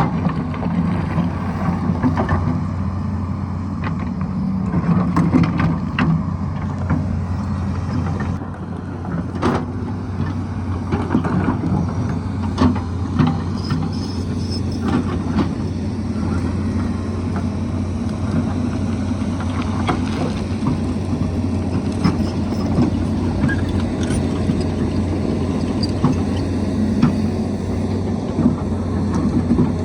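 Tata Hitachi hydraulic excavator's diesel engine running steadily under load while it digs, with scattered knocks and clatter of rock and soil at irregular moments.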